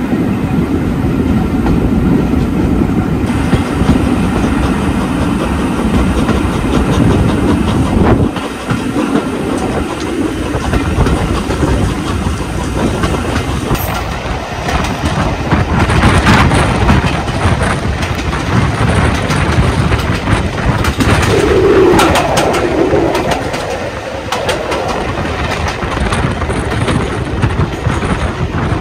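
Steam-hauled passenger train running, its carriage wheels clattering steadily over the rails, heard from an open carriage window.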